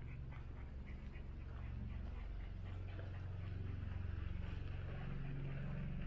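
Footsteps on a trail: faint, irregular light ticks over a steady low rumble.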